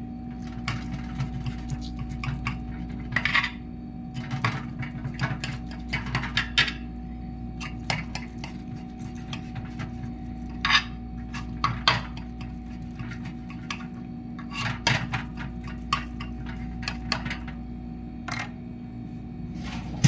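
A knife clinking and scraping against a glass baking dish as baked pasta is cut into portions, in irregular sharp clicks and taps. A steady low hum runs underneath.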